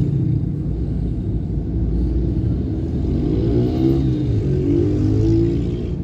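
Road traffic: a steady low rumble of vehicles. From about halfway through, a nearby engine climbs and falls in pitch as it revs and eases off.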